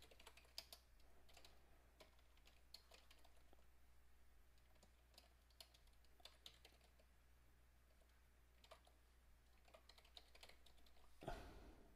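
Faint computer keyboard typing: scattered, irregular keystrokes over a steady low hum, with one short louder noise near the end.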